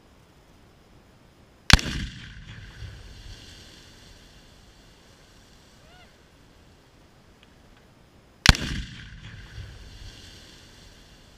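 Two Tannerite explosions in a pond, about seven seconds apart, each set off by a rifle shot. Each is a sharp blast followed by a rolling rumble of echo that fades over about two seconds.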